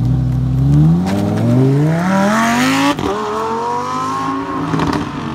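Lamborghini Huracán's V10 engine accelerating hard as the car pulls away, revs climbing through a gear, then a quick upshift with a drop in pitch about three seconds in and the revs climbing again before easing off near the end.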